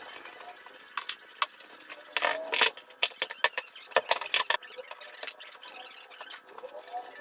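Metal hand tools clinking and clattering as they are handled and put away, a run of sharp knocks and clinks, busiest in the middle, with a faint squeak near the end.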